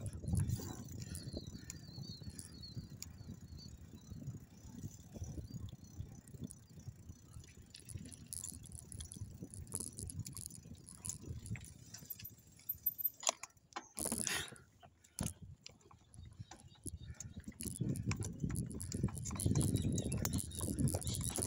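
Bicycle being ridden over rough ground: rattling and clicking from the bike's frame and drivetrain over a low rumble, with a sharp rattle about two-thirds of the way through followed by a brief quieter spell.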